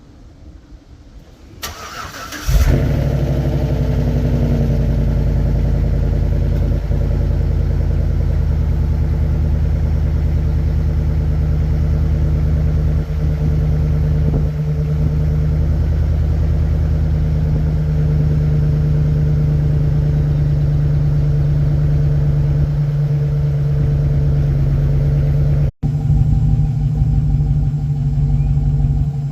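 Chevy Silverado engine breathing through a Black Widow aftermarket exhaust: it cranks briefly, catches about two and a half seconds in with a flare, then settles into a loud, steady, deep idle. Under the idle is the lifter tick the owner complains of.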